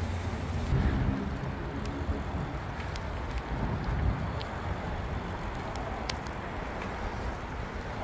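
Steady rumble of road traffic from an elevated roadway overhead, with a heavy low rumble throughout, a slight swell about a second in and again near four seconds, and a few faint clicks.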